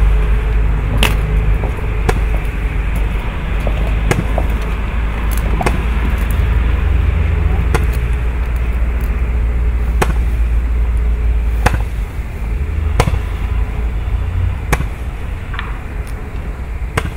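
A 30-shot Roman candle firing its stars one at a time, each shot a sharp pop, roughly one every one to two seconds. Under the pops is a low rumble that drops away about twelve seconds in.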